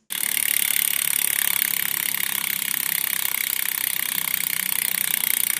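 A steady mechanical whir made of rapid ticking that starts abruptly and cuts off abruptly.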